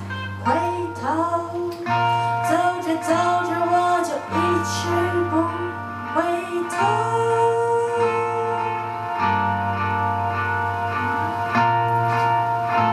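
A woman singing live to acoustic guitar accompaniment, with a second guitar. Her phrases bend in pitch, and she holds one long note about seven seconds in.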